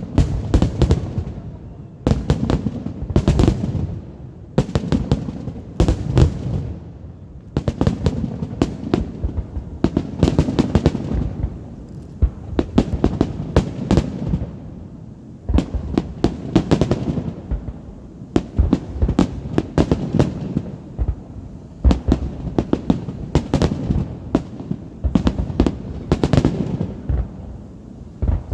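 Fireworks salute going off: rapid salvos of sharp bangs and crackles with deep booms, coming in waves every couple of seconds.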